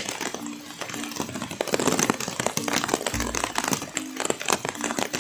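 Background music with short repeated tones and a deep low bass note about three seconds in, over a steady crackle of sharp clicks.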